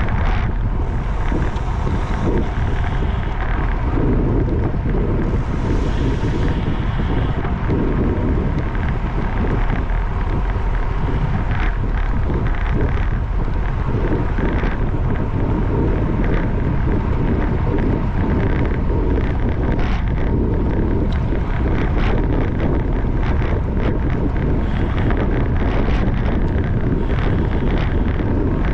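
Heavy wind noise on the microphone of a camera travelling at racing speed with a bicycle: a loud, steady rush with scattered clicks and rattles.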